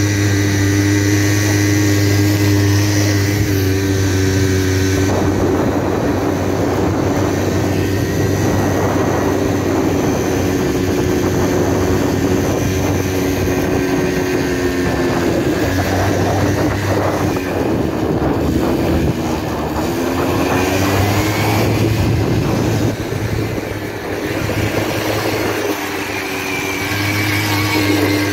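Quad bike (ATV) engine running at a steady pitch, then dipping and climbing again a little past halfway as the throttle changes, before settling back to a steady run near the end.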